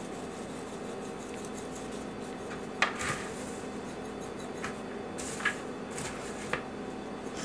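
Scattered light clicks and knocks, the loudest about three seconds in, with a couple of brief soft hisses: seasoning being shaken from a metal shaker onto popcorn in a glass bowl while a wooden spoon stirs it. A steady low hum runs underneath.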